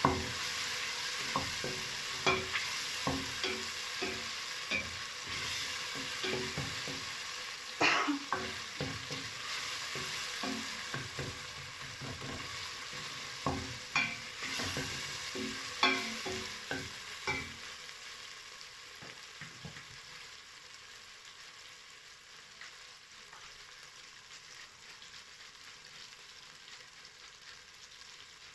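Tomatoes sizzling as they fry in a pan, stirred with a spoon that knocks and scrapes against the pan again and again. The knocking stops a little past halfway, and the frying sizzle goes on more quietly.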